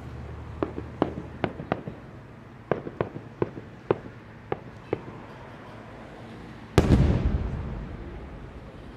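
Aerial firework shell display: a run of about a dozen sharp pops over the first five seconds, then one heavy shell burst about seven seconds in, the loudest sound, with a long rumbling echo that fades away.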